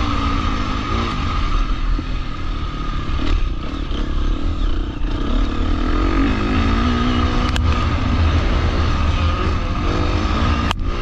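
250cc four-stroke motocross bike engine heard from the bike's onboard camera while riding the track, revs rising and falling continuously, with a couple of brief knocks near the end.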